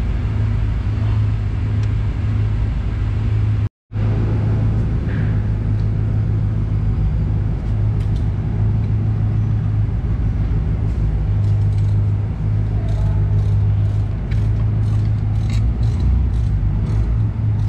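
Steady low droning hum of a running machine or engine, cut off briefly about four seconds in, with light clicking taps in the second half.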